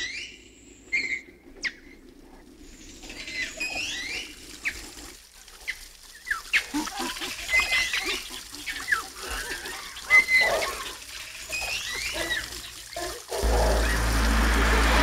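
Many short, bird-like chirps over a faint trickle of water. About thirteen seconds in, a much louder steady sound starts suddenly.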